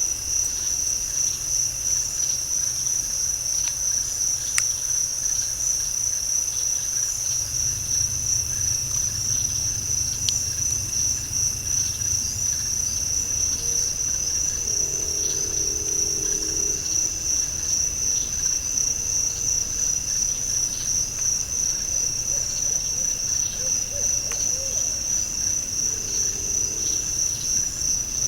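Night insect chorus of crickets trilling steadily at a high pitch, with faint short low tones around the middle and again near the end.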